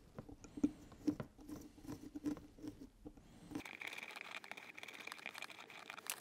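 Faint scratching and small clicks of a hand blade cutting through the leather of a car door panel, trimming out a speaker hole; from a little past halfway the scraping becomes steadier and hissier.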